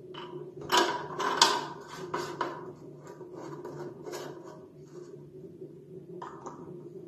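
Plastic clicks, scrapes and creaks as a toilet cistern fill valve is handled and pushed into place inside the tank. The knocks are loudest about a second in and come irregularly over a steady low hum.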